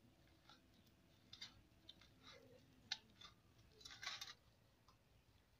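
Faint, soft crackling and clicking of a hand kneading rice flour and palm fruit pulp in a steel bowl, in short irregular bursts, the loudest a little after four seconds.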